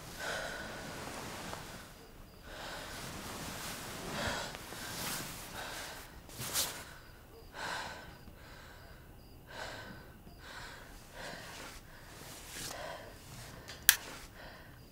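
A woman breathing heavily and unevenly, with short gasping breaths coming every second or two. A single sharp click near the end.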